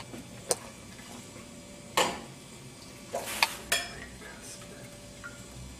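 A stainless steel pot and a ceramic bowl clattering together: a few sharp knocks and clinks, the loudest about two seconds in, with a quick run of clinks around three and a half seconds.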